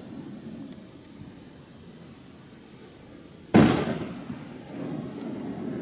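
A single firework bursting about three and a half seconds in: one sudden loud bang that dies away over about a second, over a low steady background noise.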